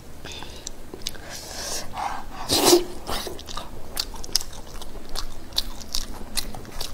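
Close-up mouth sounds of eating braised pork knuckle skin: chewing with many small wet clicks and smacks, and one louder bite or smack about two and a half seconds in.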